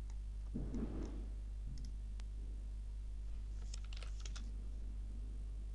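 A quick run of computer keyboard key clicks about three and a half seconds in, over a steady low hum, with a soft low thump near the start.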